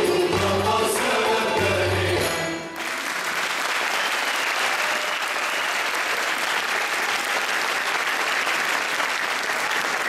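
A Turkish folk-music men's choir and instruments sing the final phrase, which cuts off about two and a half seconds in. Audience applause follows and keeps going steadily.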